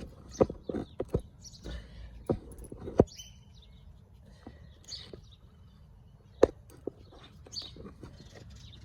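A dog chewing hard-boiled egg with its shell, in irregular crisp crunches and clicks, a few of them sharp and loud. Birds chirp faintly in the background.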